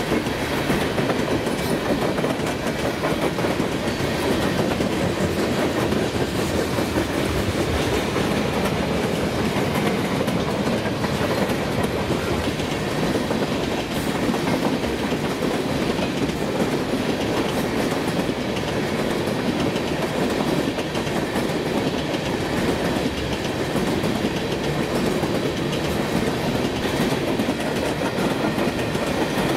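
BNSF freight train cars rolling past: steady wheel-on-rail noise with clickety-clack over the rail joints.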